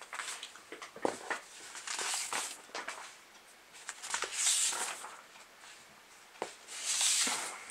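Large paper pages being turned by hand: three rustling swishes about two and a half seconds apart, with small crackles and clicks of the paper being handled in between.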